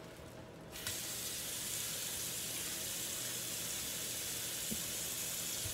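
Cabbage sizzling in a pan on the stove: a steady hiss that starts suddenly about a second in.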